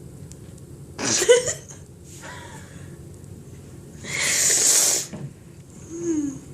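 A person sneezing: a sharp loud burst about a second in, a softer breathy sound, then a louder hissing blast lasting about a second from around four seconds in, and a short falling voiced sound near the end.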